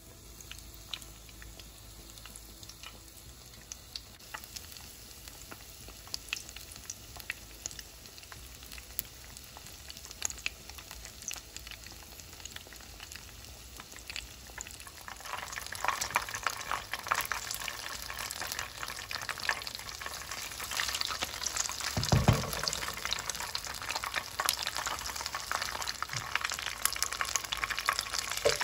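Breaded bread rolls frying in hot oil. Scattered crackles build into a denser, louder sizzle from about halfway through, and a low thump comes a little after that.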